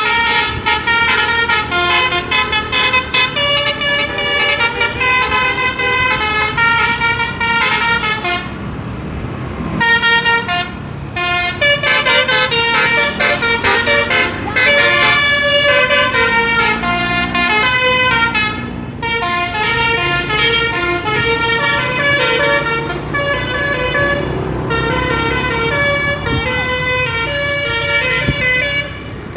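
Basuri telolet horn on a bus playing a quick tune of multi-tone air-horn notes, stepping from pitch to pitch in short phrases, with a pause of about a second roughly nine seconds in.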